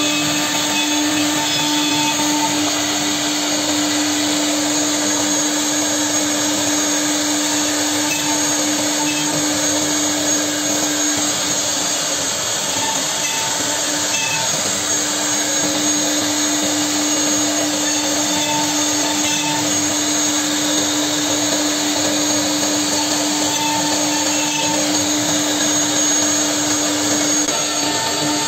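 Single-spindle CNC router (Holztek HT-1325) cutting circles out of a plywood sheet: a steady spindle whine over the even rushing noise of the bit in the wood and the dust extraction.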